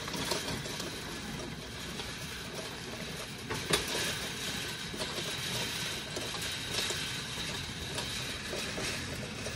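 DoorKing 9100 slide gate operator running, its motor and drive moving the gate through its position-counting cycle. Steady mechanical running with a faint high whine and one short clack a little under four seconds in.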